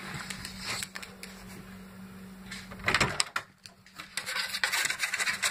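Scratching and rubbing on wood, with a louder bump about three seconds in and a run of quick scrapes near the end.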